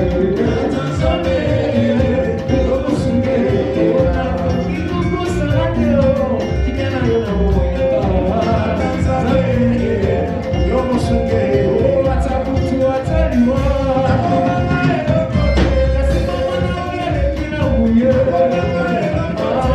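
Live praise and worship band playing upbeat, danceable music with a steady beat.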